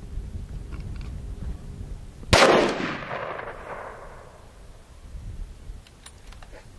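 A single gunshot about two seconds in, followed by a long rolling echo that fades over about two seconds.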